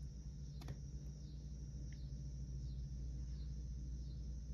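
Quiet room tone: a steady low hum and a high hiss, with one faint tap about two-thirds of a second in.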